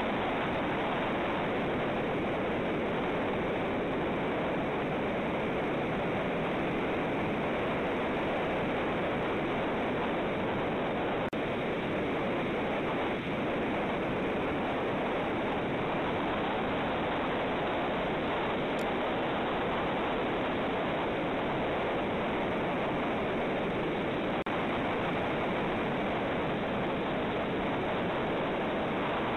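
Steady, even rushing noise picked up by a cliff-top eagle-nest camera's microphone, the sound of wind and surf over the site. It holds level throughout, with no eagle calls.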